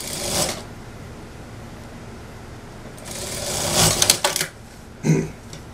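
Industrial single-needle sewing machine stitching a trouser waistband: a brief run at the start, then a longer run about three seconds in that grows louder before stopping. A short thud follows about five seconds in.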